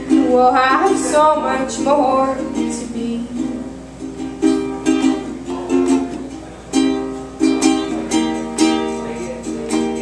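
Live ukulele strummed in chords, with a woman singing over the first two and a half seconds; after that the ukulele carries on alone in a steady strumming pattern.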